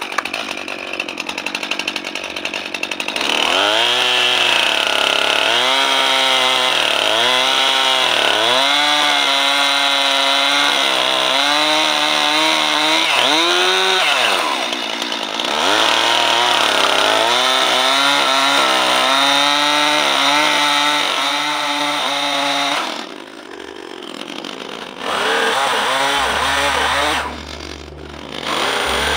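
Stihl gasoline chainsaw cutting into a wood bowl blank, its engine pitch dipping and recovering again and again as the chain bites into the wood. Near the end the engine eases off twice between bursts of throttle.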